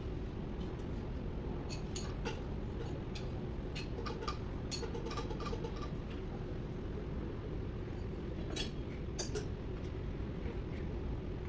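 Light metallic clinks and taps of hand tools on metal, irregular and scattered, over a steady low workshop hum.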